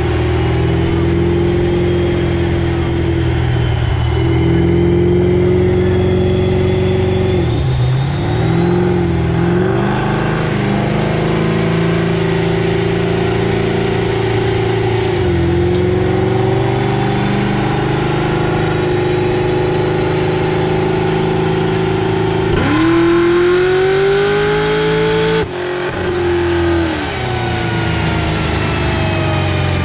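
Chevrolet SS's 6.2-litre V8 running hard on a chassis dyno, with a whine from the spinning rollers and tyres that climbs steadily in pitch as speed builds. The engine note dips briefly several times and picks up again. Near the end it revs up quickly, then cuts off sharply and winds down.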